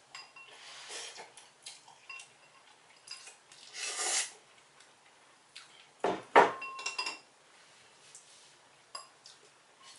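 Slurping of instant ramen noodles and broth from bowls, with chopsticks clicking against the bowls. A louder knock a little after six seconds in.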